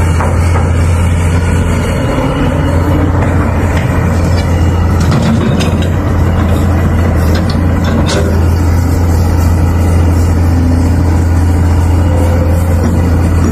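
Caterpillar tracked excavator's diesel engine running steadily under load as the machine swings and digs, a constant deep drone, with a few light clicks around the middle.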